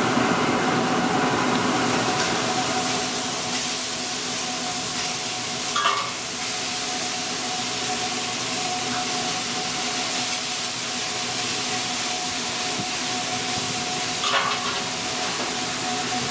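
Steady hiss of a hot flat-top griddle with corn tortillas cooking on it, over a steady hum. Two brief louder sounds come through, about six seconds in and near the end.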